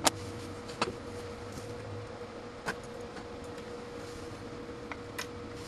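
Homemade surge tester firing 2 kV transient pulses into a multimeter's terminals: a series of sharp snapping clicks, five in all. The loudest comes right at the start and two come close together near the end, over a steady faint hum.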